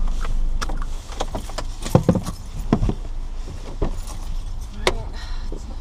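Clicks, knocks and rattles of things being handled inside a car, several sharp ones about two seconds in and another near the end, over a low steady rumble that drops away after the first second.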